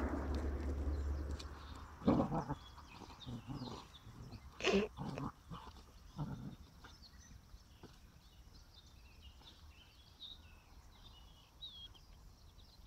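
Dogs playing, giving a few short yelps, most of them in the first half, with small birds chirping throughout. A low rumble on the microphone fades in the first second or so.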